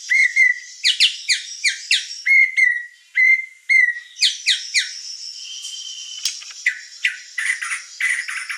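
White-rumped shama (murai batu) singing a loud, varied song: runs of quick falling whistles repeated several times in a row, broken by short steady whistled notes.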